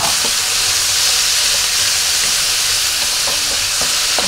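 Garlic, ginger, onion and freshly added tomatoes sizzling in hot oil in a wok: a steady hiss, with a few light scrapes of a spatula stirring against the pan.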